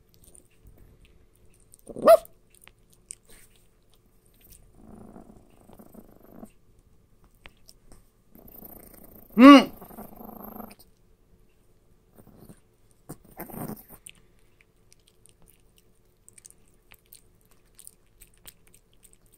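Two small dogs in a standoff: spells of low, rough growling, with a short sharp yap about two seconds in and a louder high yap about halfway through, then another brief growl.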